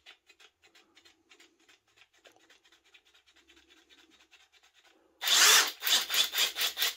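Faint quick ticking, then about five seconds in a Parkside cordless impact driver runs loudly in a string of short pulses, about six a second.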